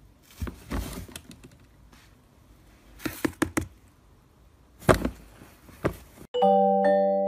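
Hollow knocks and clatters from a plastic swing-lid trash can as a cat on top of it slips off the lid, in short bursts of a few knocks each. Near the end, bright mallet-percussion music starts.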